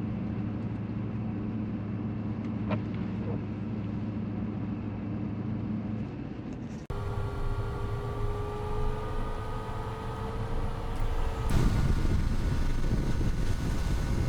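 Vehicle engine and road noise while driving, a steady hum. About seven seconds in the sound cuts abruptly to a different stretch of driving with a whine slowly rising in pitch. It gets louder and rougher from about eleven seconds.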